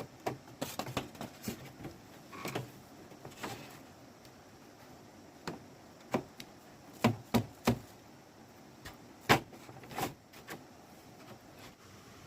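Scattered knocks and taps of hard objects, with three sharp knocks in quick succession about seven seconds in and the loudest single knock a little after nine seconds.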